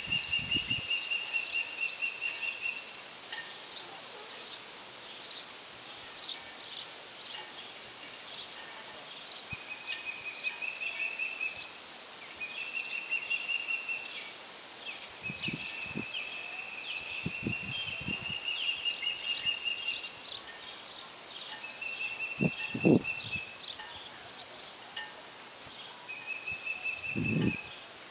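Osprey calling: repeated runs of rapid, high whistled chirps at a steady pitch, each run lasting one to three seconds. A few short low thumps come through between the calls.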